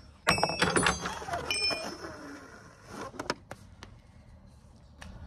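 The steel end hook and fittings of a ratchet strap clink and ring briefly as the strap is rolled up by hand, twice in the first two seconds. A few light clicks of handling follow.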